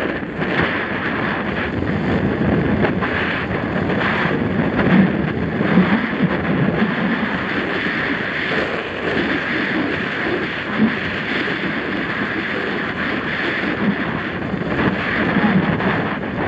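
Wind rushing over a helmet camera's microphone during a fast mountain-bike descent, with the Santa Cruz Nomad's tyres on dry dirt and the bike rattling in frequent short knocks over rocks and bumps.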